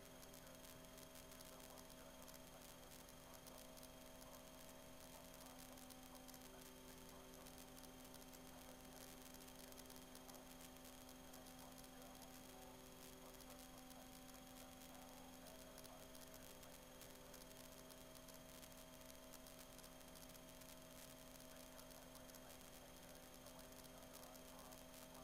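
Near silence: a faint, steady electrical hum made of several fixed tones, with a little hiss underneath.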